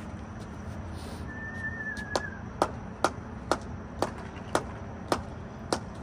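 Mallet tapping a pillow-block bearing along a steel drive shaft to seat it: eight sharp strikes at roughly two a second, starting about two seconds in.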